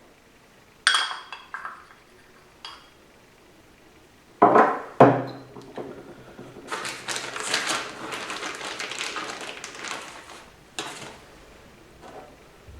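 Metal automatic-transmission parts clinking and knocking as they are handled: a clink about a second in, two sharp knocks at about four and a half and five seconds, then a few seconds of jingling metallic rattle.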